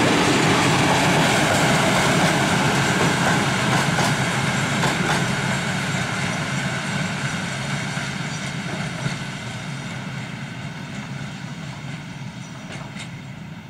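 Open freight wagons for bulk materials rolling past on rails, wheels rumbling with a few faint clicks, the sound fading steadily as the end of the train moves away.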